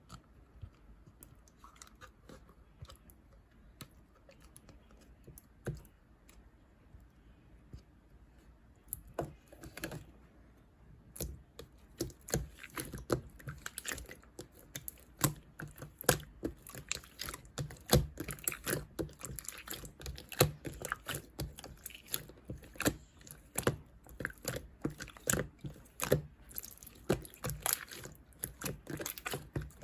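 Clear slime being squeezed and poked by hand, making wet, sticky clicks and small pops. The clicks are sparse and faint at first, then come thick and fast from about nine seconds in.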